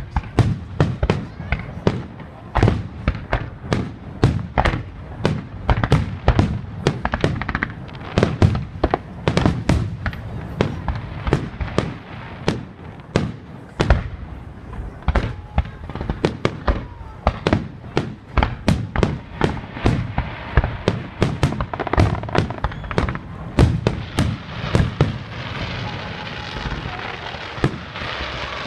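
Fireworks going off in quick succession: sharp bangs several times a second, with a crackling hiss building up near the end.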